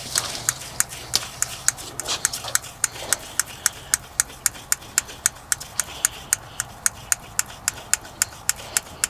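Fuel pump ticking evenly, about three sharp clicks a second, as the backhoe's diesel fuel system is being primed.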